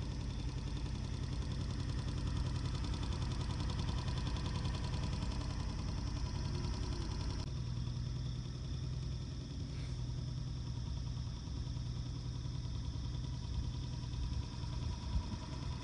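Small boat motor running steadily as the boat cruises, a continuous hum with a high whine; the sound shifts abruptly about halfway through.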